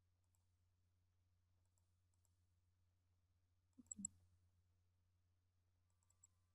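Near silence with scattered faint computer-mouse clicks, loudest as a pair about four seconds in and a few more near the end, over a low steady hum.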